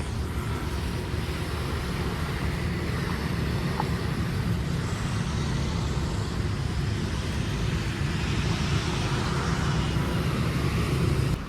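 Steady road-traffic noise with a continuous low rumble of vehicle engines and tyres, with no single event standing out.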